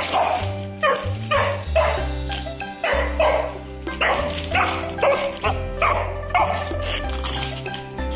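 A hunting dog barking excitedly about once a second at a cat caught in a wire cage trap, over background music with held notes.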